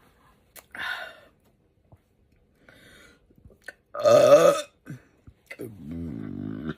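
A woman burping: a loud, short burp about four seconds in, then a longer, lower drawn-out burp near the end.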